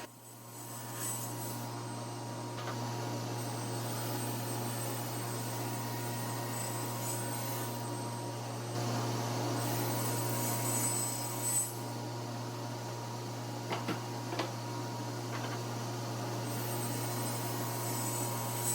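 A power saw's motor running steadily with a low hum while it cuts sheet stock into squares, with a few light knocks past the middle.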